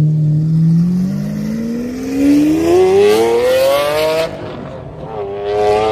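A car engine revving hard, its pitch climbing steadily for about four seconds, then falling back and climbing again near the end.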